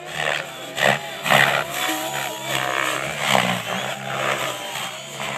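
Radio-controlled model aircraft's motor droning, its pitch rising and falling as it flies about overhead, with several short rushing bursts of noise on the microphone.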